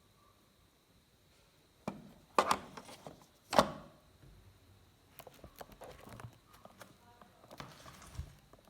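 Handling noises of a smartphone and its box: a few sharp knocks and thuds about two to four seconds in, then a run of small clicks, taps and light rustles.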